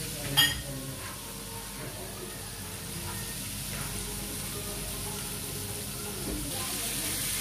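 Floured fish frying in oil in a pan on a gas burner, a steady sizzle, with one sharp click about half a second in.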